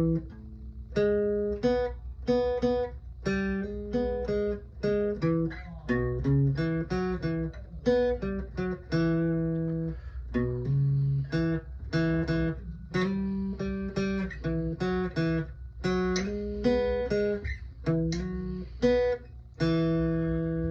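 Acoustic guitar playing an instrumental break, a quick run of plucked notes and strummed chords with no voice.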